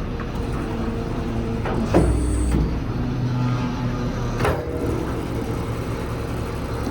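Truck's diesel engine running steadily to drive the crane hydraulics while the service crane is worked, with two sharp clunks, one about two seconds in and another near four and a half seconds.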